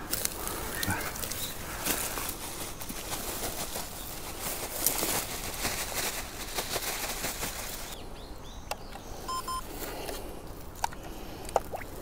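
Dry leaves and twigs of the forest floor rustling and crackling in a dense run of small snaps for about eight seconds, then easing off to a few isolated clicks. A quick series of short high beeps comes about two-thirds of the way through.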